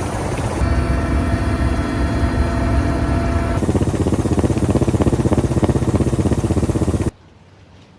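Loud engine or machinery noise. A rumble carries a whine of several steady tones in the first half, then turns to a fast regular pulsing, and cuts off abruptly about seven seconds in.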